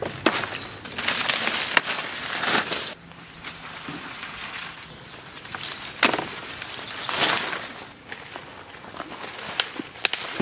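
Leafy plants rustling and swishing in a few bursts as they are handled and leaves are gathered, with several sharp clicks in between.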